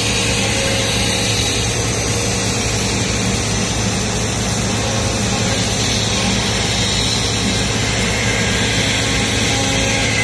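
Routmac YL-12242R CNC router running a cutting program, its spindle at 16,000 rpm routing a wooden sheet. The noise is loud and steady throughout.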